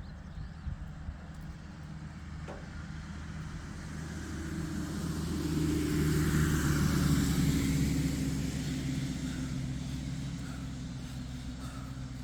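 A car passing by, growing louder over a few seconds and then fading away.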